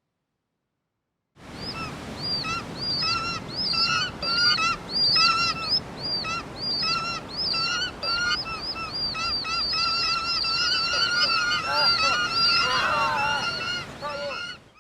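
A flock of geese honking: many short, overlapping honks, a few each second, starting after about a second and a half of silence.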